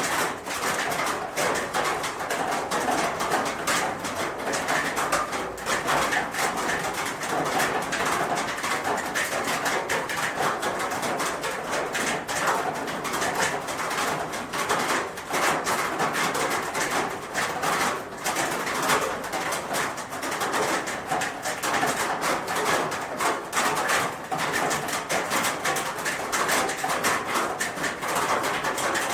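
Steady rain falling on a roof, a dense run of small drop impacts without a break.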